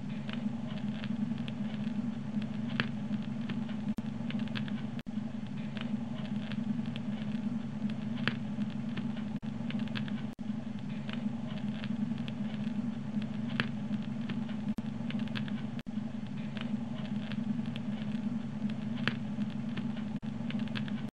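Dual 1216 turntable playing a record's silent groove, reproducing a steady low hum with dense crackling and occasional louder ticks. This is the annoying noise that the owner hears at the start of the record and between songs.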